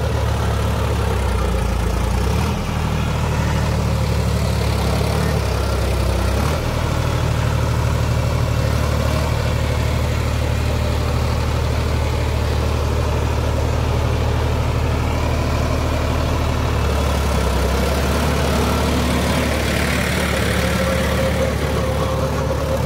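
Sonalika DI 47 RX tractor's diesel engine running steadily under load while driving a Shaktiman gear-drive rotavator that churns the soil, with slight shifts in engine note a few seconds in.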